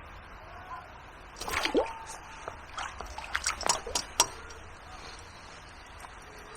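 Water splashing and dripping: a brief swish with a falling pitch about a second and a half in, then a quick run of sharp splashes and drips over about a second and a half.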